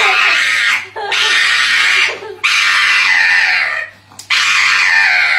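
A pug screaming in four long, loud, high-pitched cries while it is held and its front paw is handled.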